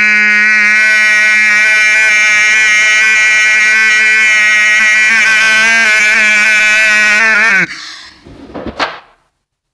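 A young man's voice holding one long, loud, unwavering note as the drawn-out end of a 'yeah boy' shout. About seven and a half seconds in the pitch drops and the note breaks off, and a short breathy sound follows.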